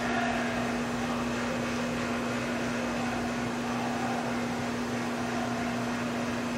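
Steady mechanical hum with one constant tone over a background hiss.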